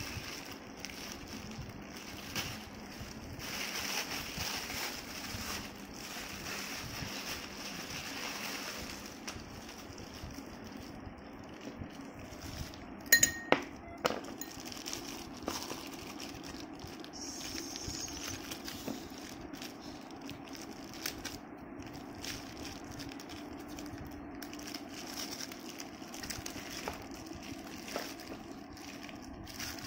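Plastic bag crinkling and ice cubes clinking as a bag of ice and salt, used to freeze ice-cream mix, is untied and opened, with a couple of sharp clinks about 13 seconds in.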